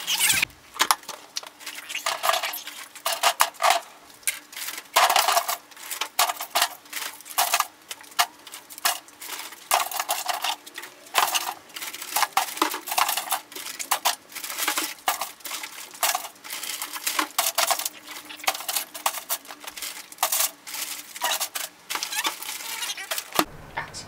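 Plastic 17-ounce water bottles crinkling, clattering and knocking against one another and the wire basket as they are packed into an ARB 50-quart fridge: an irregular run of crackles and clunks.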